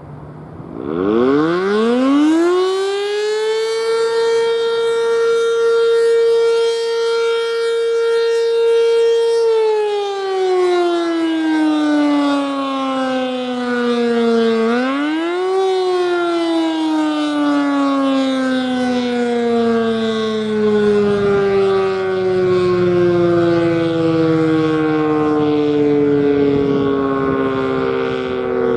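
ACA Banshee 115 electromechanical civil defense siren sounding a test run. It winds up quickly to a steady tone and holds it for several seconds, then winds down. About halfway through it rises briefly again, then coasts down slowly with its pitch falling.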